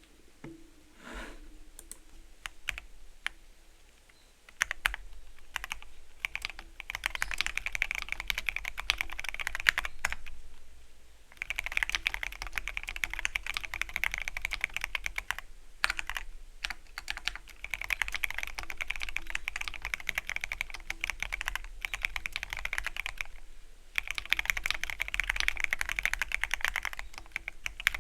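Typing on a Keychron Q13 Pro Max mechanical keyboard with red linear switches. A few scattered keystrokes come first, then fast runs of key presses lasting several seconds each, with short pauses between them.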